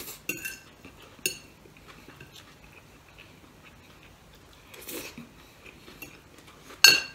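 Metal fork clinking and scraping against a plate while eating noodles: a few sharp, ringing clinks, the loudest near the end, with a softer scrape about five seconds in.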